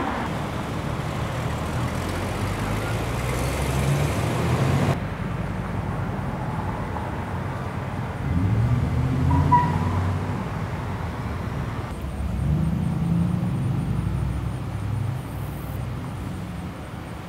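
Street traffic: car engines running and passing, two of them pulling away with rising pitch in the middle and later part. The background changes abruptly about five seconds in.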